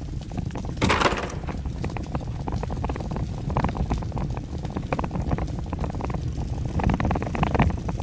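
Bicycle riding over paving with a steady low rumble of wind buffeting the bike-mounted microphone and a continuous fine rattling, with a brief louder rush about a second in.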